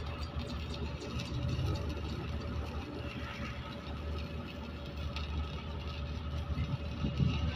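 An engine running steadily with a low rumble and a steady hum, and a crackling hiss over it.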